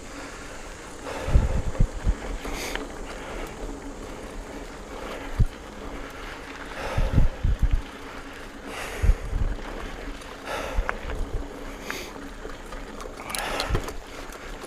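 Wind buffeting the microphone of a mountain bike in motion on a dirt trail, with the tyres rolling and scattered knocks and rattles as it goes over bumps and roots.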